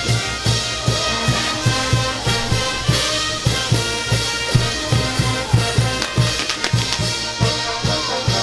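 Brass band music, trumpets playing held notes over a steady bass-drum beat.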